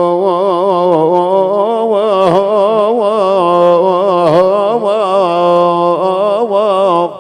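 A single amplified melody line in the Arabic mawwal style, rich in harmonics. It holds a steady note, then weaves through rapid wavering ornaments and turns, and breaks off abruptly near the end with a short echo.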